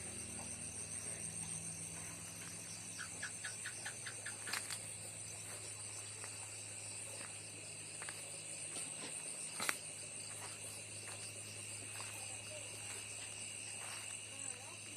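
Steady high-pitched chorus of insects trilling at several pitches at once. A short run of rapid ticks comes about three seconds in, and sharp clicks come near five and ten seconds in.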